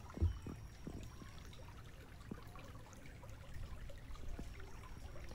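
Shallow stream babbling faintly over stones, with a short low thump about a quarter second in.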